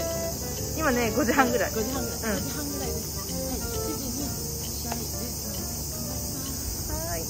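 Steady, high-pitched insect chorus, with some faint voices about a second in.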